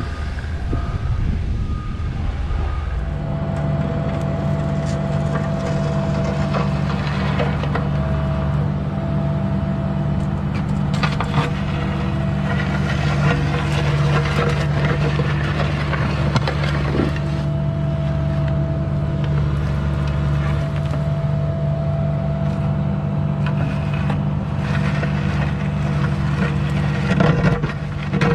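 Cat mini excavator's diesel engine running steadily, settling to an even pitch about three seconds in, with a few metallic clanks now and then as it digs.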